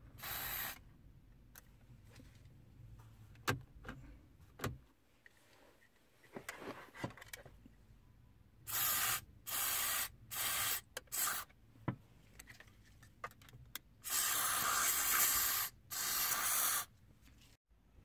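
WD-40 contact cleaner aerosol sprayed through its straw into the indicator stalk switch in short hissing bursts: four short bursts about halfway through, then two longer ones near the end, flushing out dust from the switch contacts. A few soft clicks come between the bursts.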